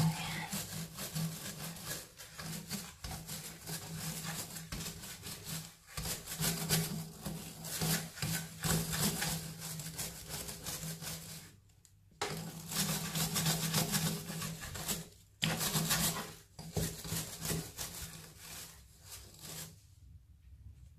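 Scrub brush scrubbing the surface of a spa bath in quick back-and-forth strokes, pausing briefly twice in the second half and stopping near the end.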